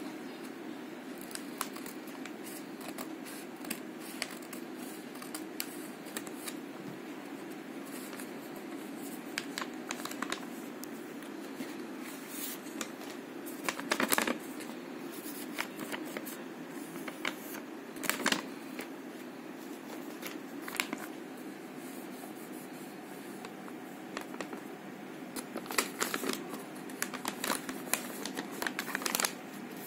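Sheets of paper handled by hand: scattered crisp rustles and taps, with a few louder bursts, the strongest about halfway through and near the end. A steady low hum runs underneath.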